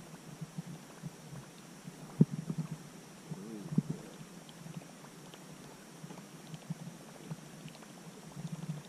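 Water gurgling and lapping close by, low and uneven, with a sharp knock about two seconds in and a brief burst of gurgling a little after.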